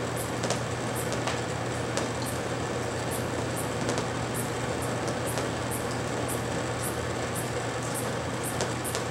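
Outdoor evening ambience: a steady rushing noise with a low hum beneath it, and short high chirps repeating irregularly, about two a second.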